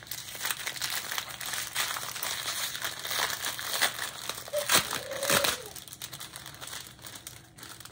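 Small clear plastic bags of diamond-painting rhinestone drills crinkling as they are handled, with a few sharper crackles a little past halfway.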